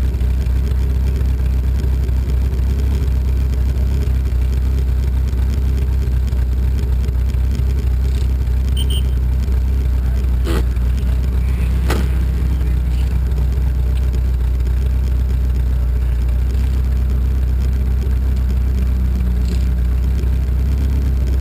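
Lotus 61 Formula Ford racing car's engine running at speed with a steady, even drone. Two brief clicks come about halfway through.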